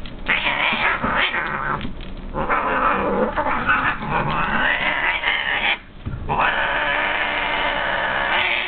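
Angry brown tabby cat crying out in long, drawn-out, wavering cries as another cat bites her, with two short breaks, about two seconds in and about six seconds in.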